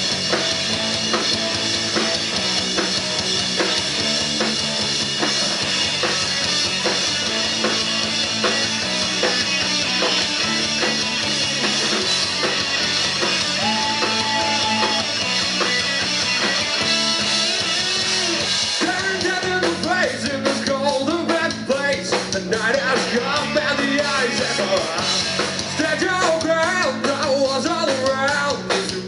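Rock band playing live: electric guitars, bass guitar and drum kit, with a man's sung vocal coming in about two-thirds of the way through.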